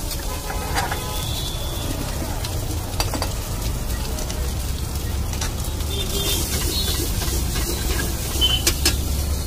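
Egg pulao sizzling as it fries in a pan over a gas flame, stirred with a metal spatula, with a steady low rumble underneath. The spatula clinks against the pan once about three seconds in and several times in quick succession near the end.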